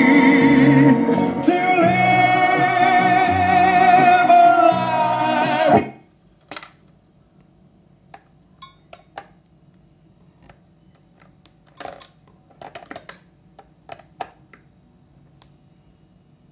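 A song with a singing voice and guitar playing through a valve radiogram's speaker, which stops abruptly about six seconds in. A faint low hum follows, with scattered soft clicks.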